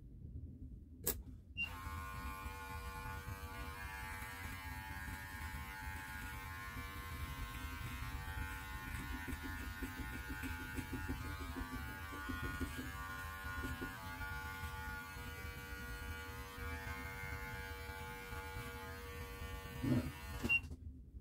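Electric beard clippers: a click, then the motor starts about a second and a half in. It runs with a steady buzzing hum as the clippers cut through beard hair, and cuts off suddenly shortly before the end.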